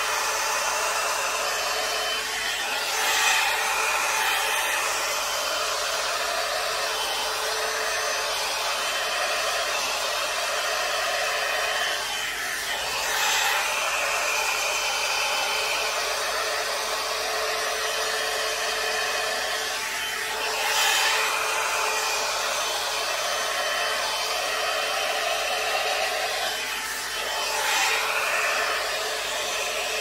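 One-step hot-air brush hair dryer running steadily, a continuous rush of air with a steady hum, on its high setting, which is loud. Its sound swells briefly about every seven or eight seconds.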